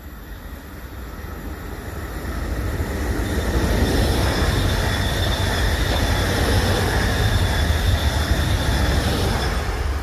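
A Südostbahn train running through the station without stopping. Its rumble builds over the first few seconds, then holds loud with a steady high whine over it as the train passes.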